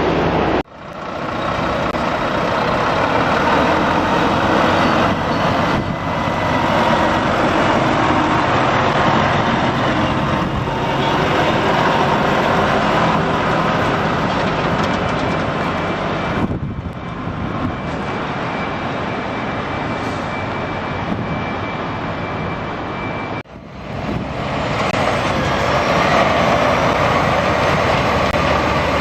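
Diesel lorries running and driving past at close range, a dense steady noise of engines and tyres. The sound breaks off abruptly twice, about half a second in and again a few seconds before the end.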